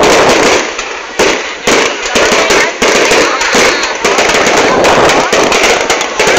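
Dense, continuous barrage of fireworks and firecrackers going off, a loud, unbroken crackle of many rapid pops with only brief dips.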